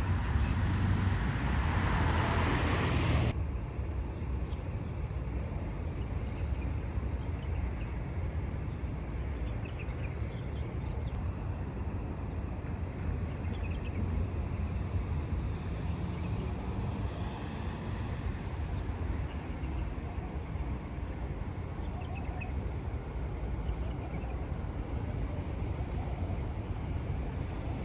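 Street ambience with a steady low rumble of road traffic. A louder hiss of noise over the first three seconds or so cuts off abruptly.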